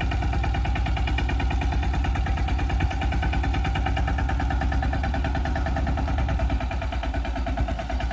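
Mini tractor's diesel engine running steadily under the seed drill, with a rapid, even chugging beat.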